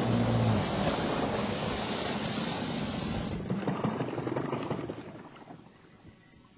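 A motor engine running with a broad, steady noise that fades away over the second half. A faint, steady high insect trill carries on underneath.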